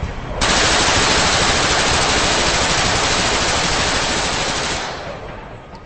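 Thompson submachine gun (Tommy gun) firing one long fully automatic burst. It starts abruptly about half a second in, holds for about four seconds and dies away near the end.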